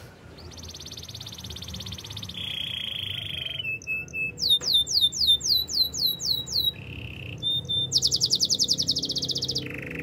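Canary singing, its song built from phrases of fast-repeated notes: a rapid high trill, a lower buzzy roll, then a run of loud down-slurred whistles about four a second in the middle, and another fast high trill near the end.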